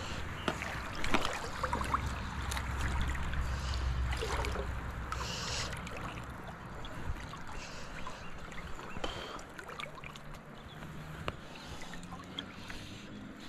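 River water running and lapping, with scattered small clicks and rustles and a low rumble for a few seconds near the start.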